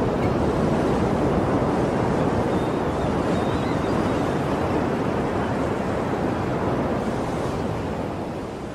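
Steady rush of sea surf, a continuous wash of waves, fading out at the end.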